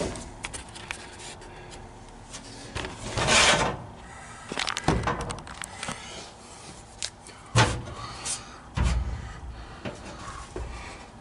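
A steel floor patch panel being handled and fitted: sheet metal rubbing and scraping, with a few sharp knocks and bumps spread through, the loudest about two-thirds of the way in.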